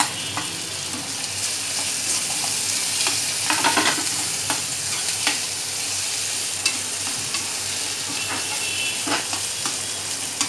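Chopped onions sizzling steadily in hot oil in a metal kadhai while a slotted metal spatula stirs and scrapes them, with scattered clicks and knocks of the spatula against the pan, a short cluster of them about four seconds in.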